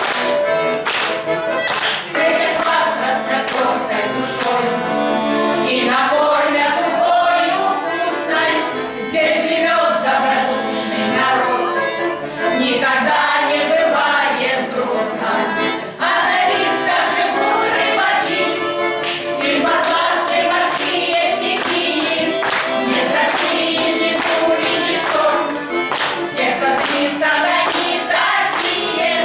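Women's folk ensemble singing a song together in chorus over an instrumental accompaniment with a steady beat.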